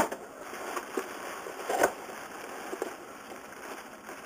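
Cardboard shipping box and bubble-wrapped contents being handled: irregular rustling and light knocks, the sharpest right at the start and another a little under two seconds in.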